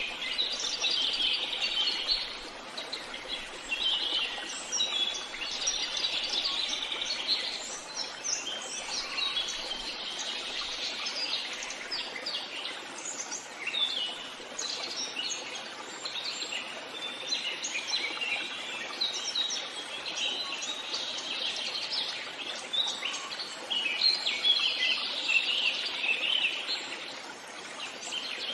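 Several songbirds singing and chirping at once in a forest, a dense mix of high chirps and trills over a steady background hiss.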